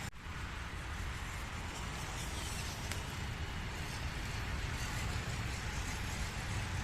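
A 1/16-scale WPL C24K RC truck driving, its small stock 180 brushed motor and gears whirring under a steady hiss. There is a brief dropout right at the start.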